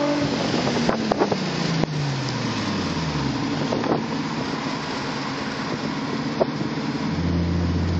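Audi S5's exhaust note heard from inside a following car, its pitch falling steadily over the first three seconds as the revs drop off after a rev. Then steady road and wind noise, with a low, even engine drone coming in near the end.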